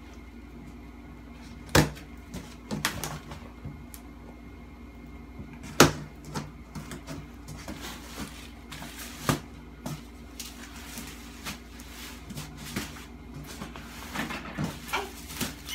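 Cardboard box and packaging of a flat-pack desk being handled and opened: scattered knocks, scrapes and rustling, with two sharper knocks about two and six seconds in.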